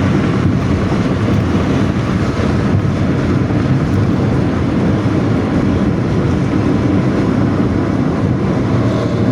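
Intercity bus engine running hard at speed through a 'ngorok' (snoring) exhaust, a steady, loud low growl with wind noise on the microphone.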